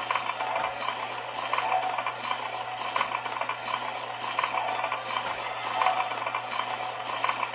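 O-gauge MTH USRA steam switcher model locomotive running: a steady mechanical rattle and clatter under a constant high tone and a low hum.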